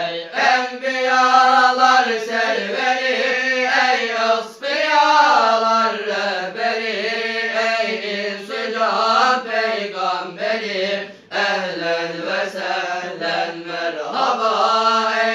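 A group of young men chanting an Islamic hymn together, unaccompanied, in long ornamented melodic lines, with short breaks for breath about four and eleven seconds in.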